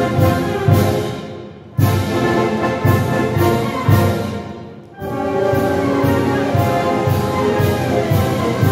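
Symphonic wind band playing a Spanish bolero live: brass and woodwinds over steady drum beats. The sound dies away and the full band cuts back in loudly about two seconds in, and again about five seconds in.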